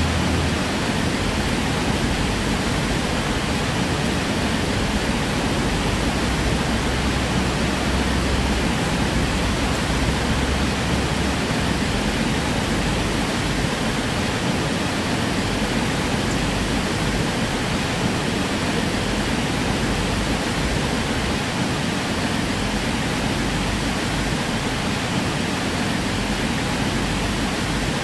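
A steady, even hiss with nothing else standing out; there is a slightly heavier low rumble for about the first ten seconds.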